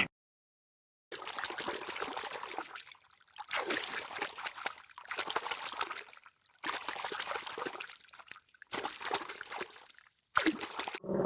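Water trickling and splashing in several short stretches, cut apart by brief silences.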